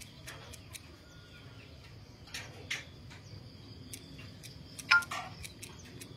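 Rural ambience: insects chirping steadily in a high, thin band, with scattered short ticks and chirps. A brief sharper, louder chirp comes about five seconds in.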